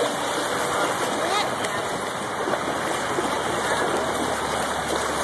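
Steady rush of water flowing through a shallow splash pool.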